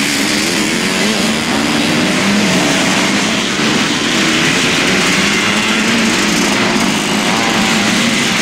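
Motocross dirt bike engines running hard on the track, their revs rising and falling as the riders accelerate and shift.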